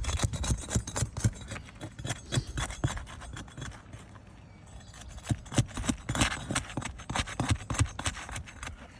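Asphalt shingles being scraped and pried loose with a hand tool, a rapid run of scrapes, taps and crackles that breaks the shingles' seal. It comes in two bouts with a short lull in the middle.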